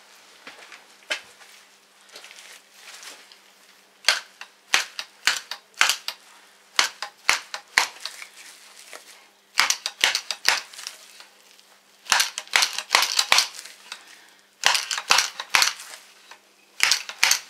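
Honda Deauville NT650 fork inner tube worked as a slide hammer, knocking the oil seal down into the fork leg to seat it. The sound is a run of sharp metallic knocks in bursts, about two a second, starting faintly and getting louder from about four seconds in.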